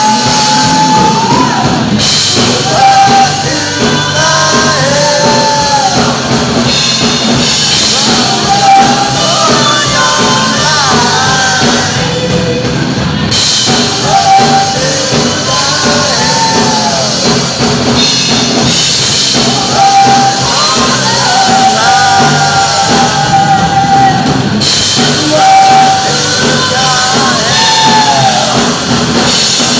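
Rock band playing with a lead singer, whose long high notes and gliding phrases come every few seconds over drums and guitar.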